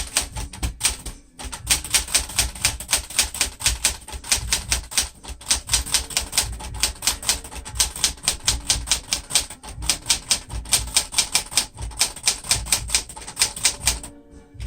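Sears Citation 12 manual typewriter, a mid-1960s Smith-Corona-built machine, being typed on steadily: a run of sharp key-and-typebar clacks at about five or six strokes a second, broken by brief pauses every few seconds.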